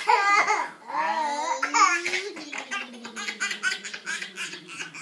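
A baby laughing hard while being tickled, ending in one long laugh of quick pulses that slowly falls in pitch.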